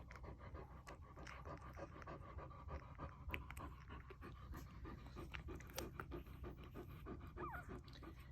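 Nursing American Bulldog mother panting heavily, a faint, quick, rhythmic breathing. The heavy breathing comes from the heat of the whelping room, which is kept warm for the newborn pups.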